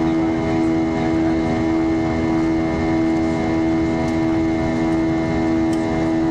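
Steady drone of an IndiGo airliner's engines heard inside the passenger cabin in flight after takeoff, a constant rushing noise with an unchanging hum of several steady tones.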